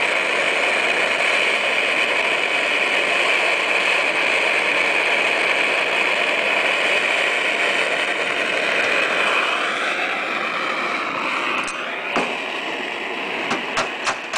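Gas-heated soldering iron's burner hissing steadily while a zinc seam is soldered. The hiss eases off about ten seconds in, and a few sharp clicks follow near the end.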